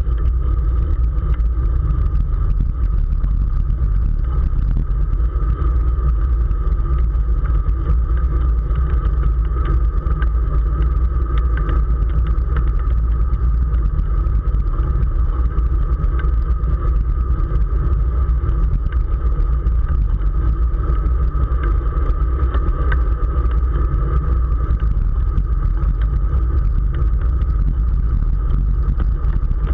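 Wind on the microphone of a camera mounted on a road bicycle while riding, a steady low rumble with a constant higher hum running through it.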